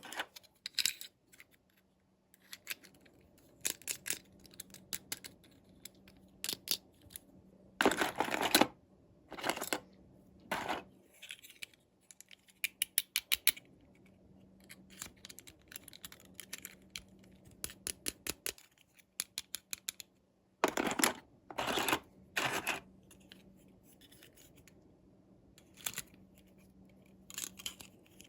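Toy packaging being handled and opened: irregular clicks, scratches and snips, with several louder rustling, tearing bursts lasting about half a second to a second.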